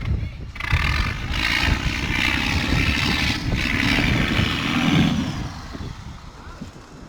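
A motor engine running close by, loud from about a second in and dying away after about five seconds, over a low rumble.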